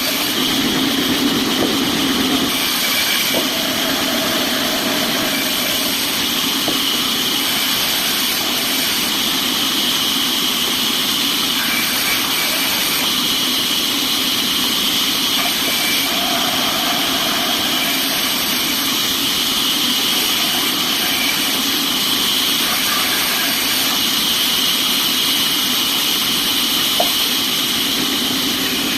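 Sawmill machinery running steadily, a loud continuous mechanical din from the saw and its drive motor, with a faint higher tone rising out of it briefly a couple of times.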